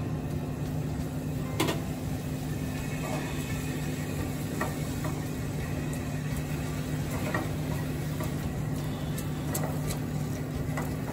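Silicone spatula stirring and scraping doubanjiang, garlic and ginger frying in oil in a stainless-steel saucepan on low heat, with a few light taps against the pan. A steady low hum runs underneath throughout.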